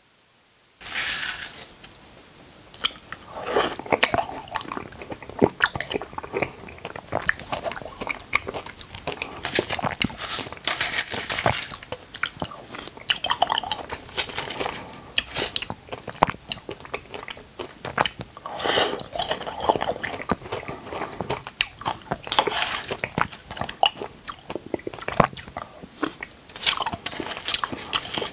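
Close-miked chewing and biting of mouthfuls of cubed red dragon fruit (pitaya), with many irregular sharp clicks and wet mouth sounds. It starts about a second in.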